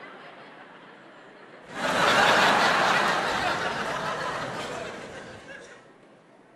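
Live theatre audience bursting into laughter about two seconds in, loudest at the start and dying away over about four seconds.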